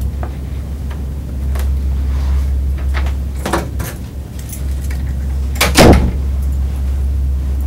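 Keys rattling and clicking at a door's lock and lever handle, then the door shuts with a loud thump about six seconds in. A steady low electrical hum runs underneath.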